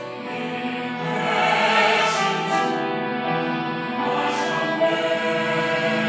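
Mixed church choir of men and women singing a hymn of praise together. Brief hissy consonants are sung together about two seconds in, again just after, and once more near the end.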